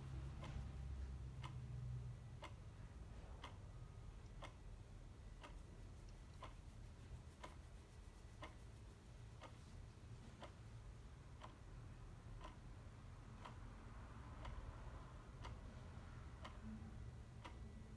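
Clock ticking faintly at a steady, even pace, about one tick a second.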